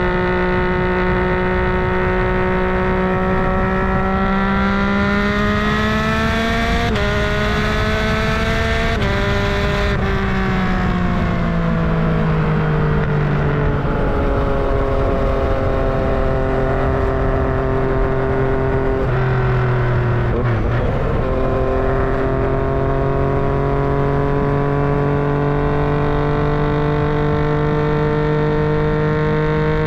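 Yamaha MT-09 three-cylinder engine and exhaust under way on a ride. The engine note climbs steadily, breaks briefly twice, drops as the bike slows, holds, dips once more, then slowly rises again.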